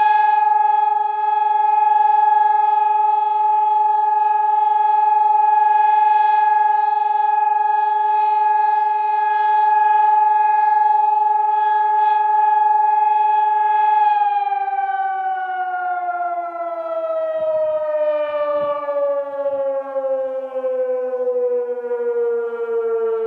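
Civil defense siren sounding during an alarm test: one steady loud tone held for about fourteen seconds, then sliding slowly down in pitch as it winds down.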